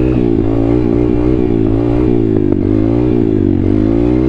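Thumpstar 140cc pit bike's single-cylinder four-stroke engine revving up and down several times in a row as the throttle is worked to lift and hold the front wheel in a wheelie. There are a few light rattles from the bike.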